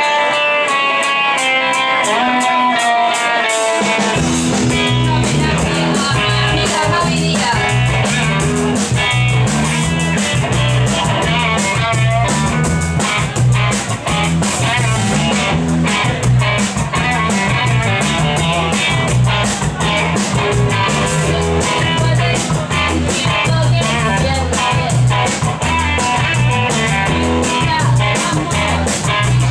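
Live band starting a song: a guitar line plays alone, then drums and bass come in about four seconds in and the full band plays on.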